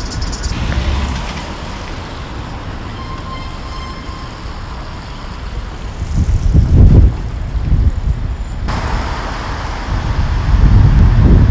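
Outdoor city-street ambience: a steady rumble of traffic with wind buffeting the microphone in heavy gusts about six to seven seconds in and again near the end. The background changes abruptly about nine seconds in, where the sound cuts to another spot.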